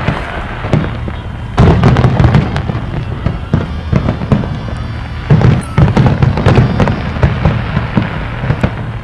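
Aerial firework shells bursting in rapid succession: a continuous barrage of bangs and crackle, with two loudest, densest volleys about a second and a half in and again about five seconds in.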